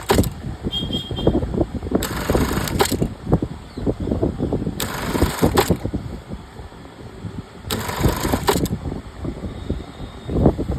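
Latino LT 373D industrial sewing machine running in short bursts of about a second each, starting and stopping four times at a steady pace, over irregular low knocking and clatter.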